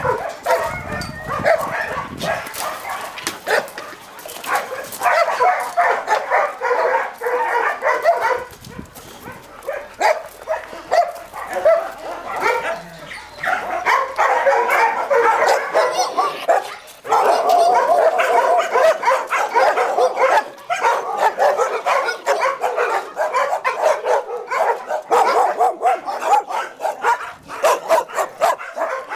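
A pack of large shelter dogs barking at once, many overlapping barks in a dense, continuous din. The barking eases off for several seconds about a third of the way in, then rises again to full strength.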